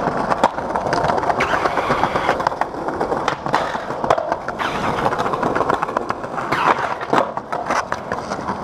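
Skateboard wheels rolling on a concrete sidewalk, broken by several sharp clacks of the board's tail popping and the board landing during flip tricks and an ollie.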